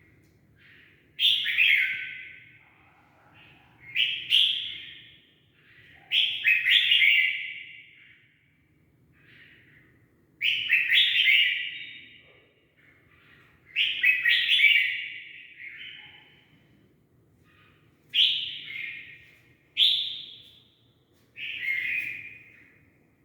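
A young bird, just fully feathered, giving loud repeated calls, each sliding down in pitch, about every one to four seconds.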